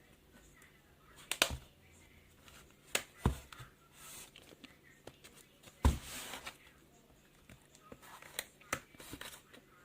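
Plastic opening pick prying around the edge of a tablet's metal back cover, with a handful of sharp clicks and snaps as the retaining clips pop loose, the loudest about six seconds in, and faint scraping in between.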